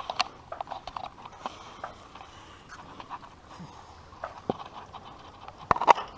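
A frog calling in short, irregular croaks, with a couple of louder knocks near the end.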